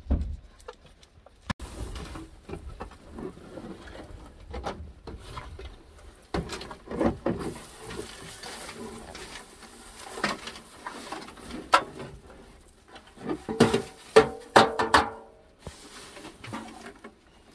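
Dry hay and fodder rustling as it is tipped from a metal basin into a metal feed trough, with irregular knocks and scrapes on the metal. Goats push in to eat at the trough.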